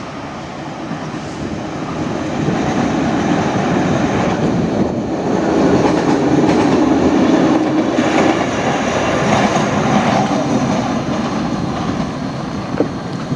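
Train passing on the State Railway of Thailand's northern line. The rail noise builds to a peak around the middle and eases off toward the end.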